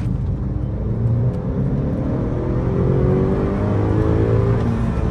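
2019 Honda Accord 2.0T's turbocharged four-cylinder, breathing through an aftermarket PRL high-volume intake, accelerating hard: the engine note rises steadily in pitch, then drops away near the end as the revs fall.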